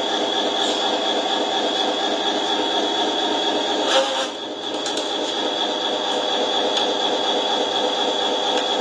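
Steady diesel-like engine drone from a radio-controlled truck's sound module, idling with a constant high whine over it. About four seconds in there is a short click from the trailer's rear, followed by a brief drop in level.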